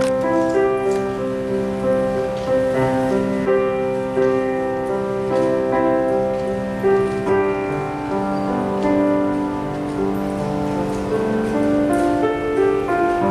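Slow instrumental music: long-held chords under a melody of held notes, changing every second or two.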